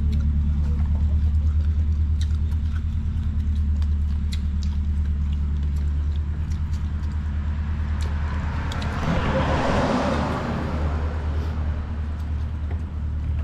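A steady low hum, with a vehicle passing by about nine to eleven seconds in, its sound rising and then fading away. Faint small clicks come here and there.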